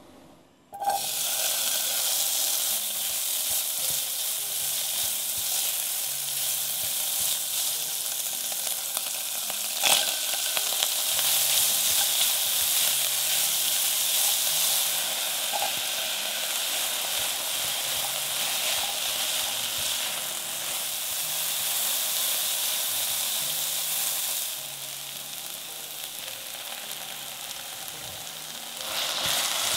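Food frying in a pan, sizzling steadily, starting suddenly about a second in. There is a single sharp tap near the middle, and the sizzle is quieter for a few seconds near the end.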